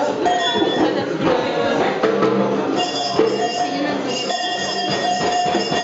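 Improvised group noise music: dense rattling and knocking percussion with tambourine, over several steady ringing tones. It cuts off abruptly near the end.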